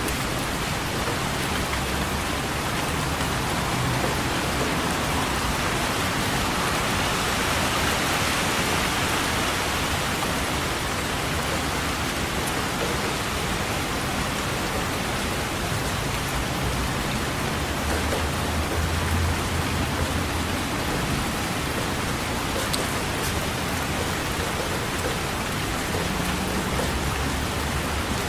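Steady rain falling, an even hiss of drops with no pauses. Low distant thunder comes and goes underneath it a few times.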